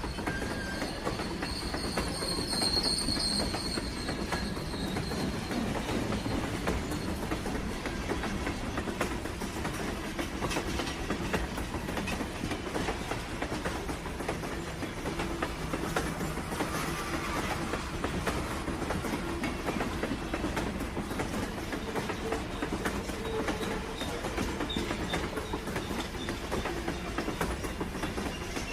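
Train running on rails: a steady rumble with the clickety-clack of wheels over the rail joints. A brief high wheel squeal comes about three seconds in.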